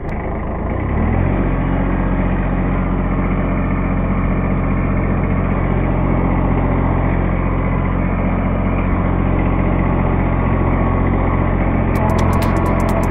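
Kubota compact tractor's diesel engine running steadily, its revs climbing during the first second.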